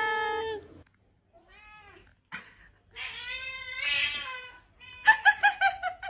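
Domestic cat yowling and meowing: a long drawn-out yowl that stops just under a second in, a faint meow, then a longer meow. Near the end comes a rapid string of short, high-pitched cries, several a second.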